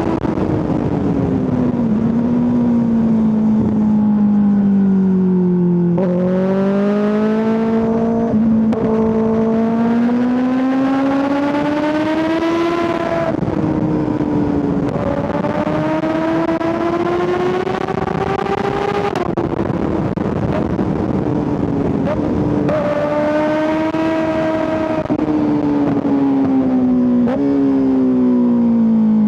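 Kawasaki ZX-6R 636's inline four-cylinder engine heard onboard while riding, climbing and falling in pitch as it accelerates and slows. Several sudden pitch drops and jumps mark gear changes, with the longest pull about halfway through and a slowdown near the end.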